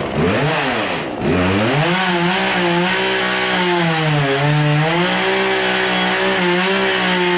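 Two-stroke chainsaw engine revved up just after starting: a quick blip up and down, a brief dip, then held at high revs with the pitch wavering slightly.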